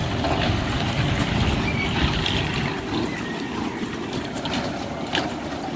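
Steady low rumbling noise of a kiddie race-car ride running, its small cars circling the track.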